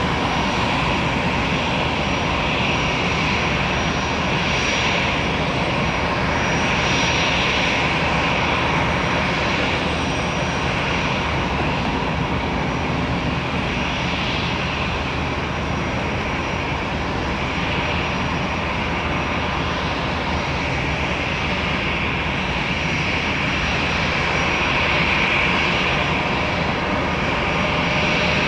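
Jet airliner engines running: a steady broad rush of noise with thin high tones held through it.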